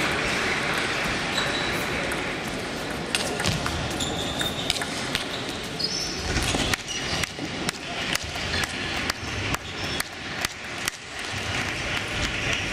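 Table tennis rally: sharp clicks of the celluloid ball on the rackets and the table, coming about two a second in the second half. Behind it is the murmur and scattered ball clatter of other tables being played in a large hall.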